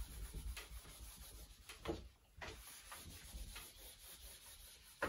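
Handheld eraser wiping a whiteboard: faint rubbing in irregular back-and-forth strokes.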